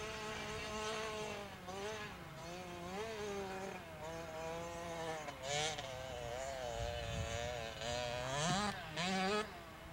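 Motocross dirt bike engine heard at a distance, its pitch rising and falling as the rider works the throttle and shifts through gears, with a sharp climb near the end before it drops off.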